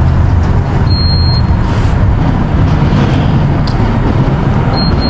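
Steady noise of a car on the move: a heavy low rumble of road and engine noise with an even hiss above it.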